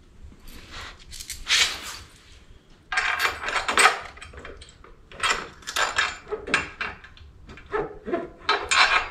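Metal luggage-rack hardware being handled at the motorcycle's rear frame: bolts, washers and rack scraping and clinking in a string of short, irregular scrapes and knocks as the parts are worked off and lined up by hand.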